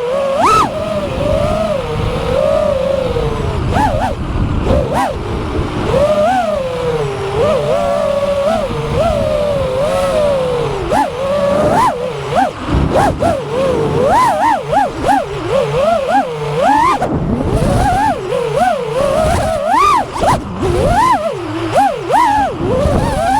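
FPV quadcopter's electric motors and propellers whining in flight, the pitch swooping up and down quickly and unevenly as the throttle is punched and chopped.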